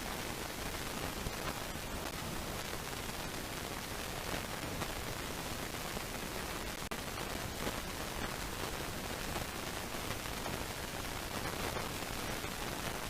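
Steady, even hiss of background noise with a few faint brief rustles or clicks.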